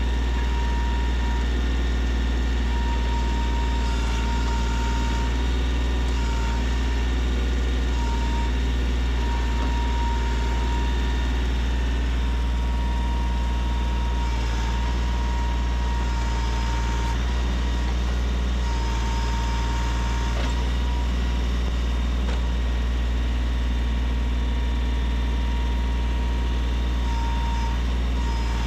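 Tractor engine running steadily at constant speed, with a thin high whine that comes and goes in short stretches.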